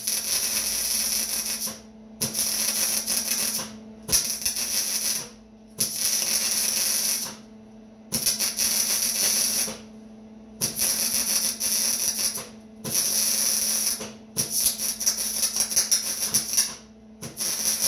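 Arc welding on a steel frame: the weld crackles and sizzles in about eight short runs of one to two seconds each, with brief pauses between, as a series of tack or stitch welds. A steady low hum runs underneath.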